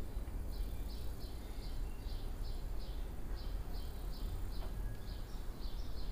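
A steady series of short, high chirps, about three a second, from a small creature, over a low steady room hum.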